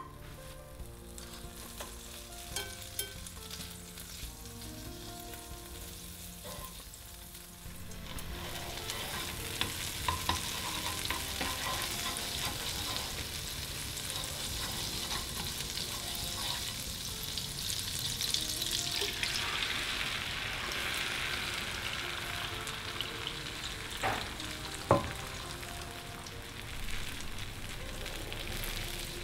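Butter melting and starting to sizzle in a nonstick frying pan about a quarter of the way in, then a steady frying hiss. Beaten egg mixture goes into the hot butter and is stirred with wooden chopsticks, the sizzle turning lower and softer, with a few sharp taps of the chopsticks on the pan near the end.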